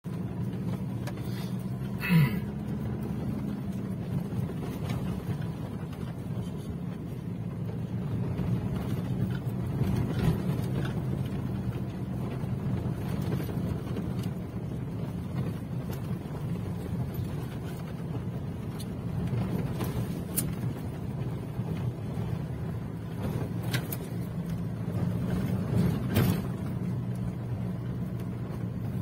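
Toyota Hilux Revo pickup driving slowly over a rutted dirt track, heard from inside the cab: a steady low engine drone, with a sharp knock about two seconds in and a few fainter knocks later on.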